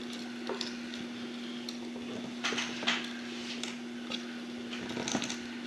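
The awl of a Victorinox Swiss Champ knife being twisted into wood to bore a hole, with faint, irregular scraping and creaking now and then over a steady low hum.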